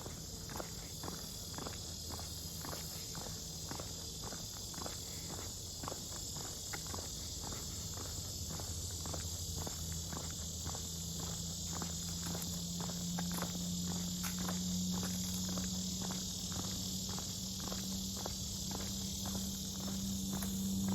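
A steady, high insect chorus buzzes throughout, with footsteps on a trail at about two steps a second. A low, steady drone grows louder in the second half.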